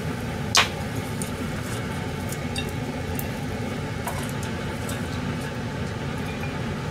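Kitchenware being handled while grilled salmon is moved from a frying pan onto plates with chopsticks: one sharp clink about half a second in, then a few faint light taps, over a steady low hum.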